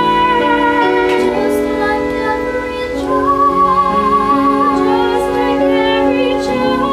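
Two children, a girl and a boy, singing a classical duet with violin accompaniment, holding long notes with vibrato.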